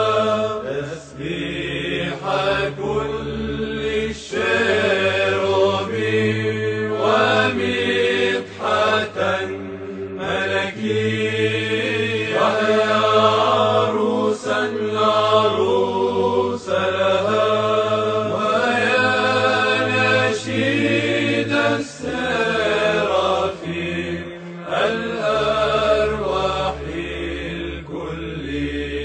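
Orthodox liturgical chant: voices singing slow, held, gliding lines over a steady low drone note.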